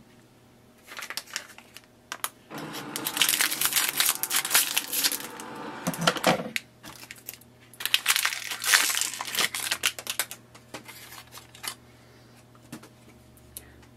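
Plastic packaging of HP 64 setup ink cartridges crinkling as it is torn open by hand, in two long spells of crackling with scattered lighter rustles and clicks around them.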